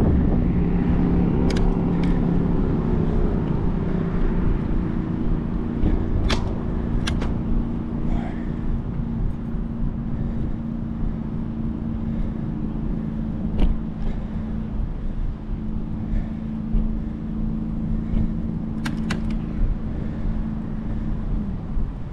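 A steady engine hum holding one pitch over a low rumble, dipping slightly near the end, with a handful of sharp clicks.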